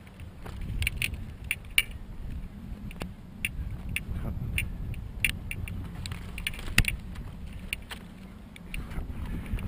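Long binding rods and brushwood being twisted and woven along the top of a laid hedge by gloved hands, with irregular woody cracks, creaks and twig clicks.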